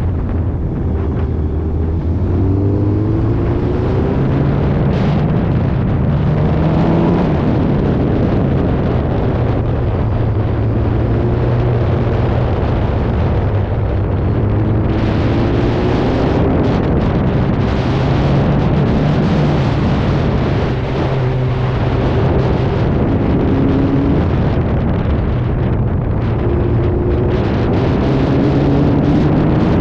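Motor vehicle engine running under load, its pitch climbing and falling back again and again as the throttle changes, with wind buffeting the microphone.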